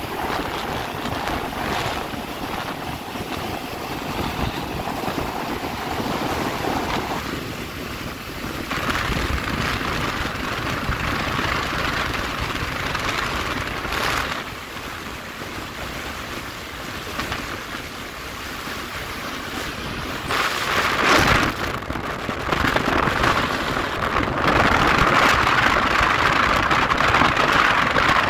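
Wind rushing over the microphone of a motorcycle moving at speed, with the bike's road noise underneath. It grows louder about twenty seconds in and again a few seconds later.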